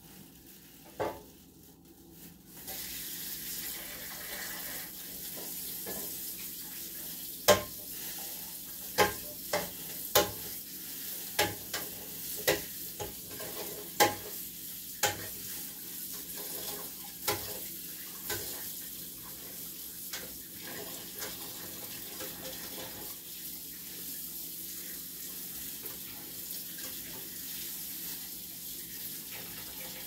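A steady hiss that starts about two and a half seconds in, with a run of a dozen or so sharp clinks and knocks between about 7 and 18 seconds in, the kind made by dishes or utensils being handled.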